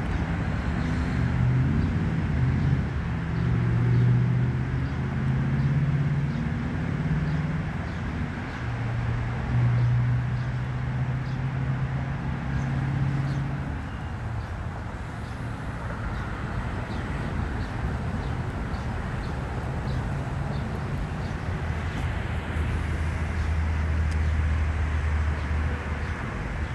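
A low mechanical hum. Its pitch shifts during the first half and it settles into a lower, steadier drone after about fourteen seconds, with faint high ticks scattered through it.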